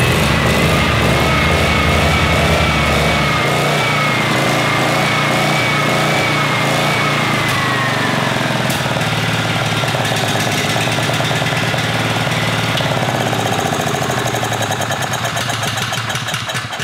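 Subaru Robin 9 hp overhead-cam single-cylinder engine on a portable generator, running steadily and sounding good on its first run in a long while. It cuts out near the end.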